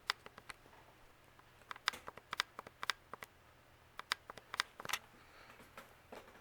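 Faint low hum of an S.M.C. UB42 ceiling fan running on its low speed, with irregular sharp clicks and ticks in small clusters over it.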